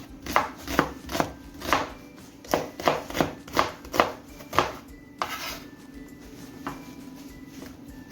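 Kitchen knife chopping vegetables on a cutting board, about two or three steady strokes a second. The chopping stops a little past halfway, leaving a couple of lone knocks.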